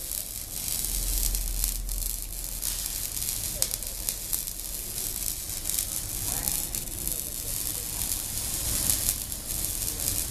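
Electric arc welding: a steady sizzling, crackling arc.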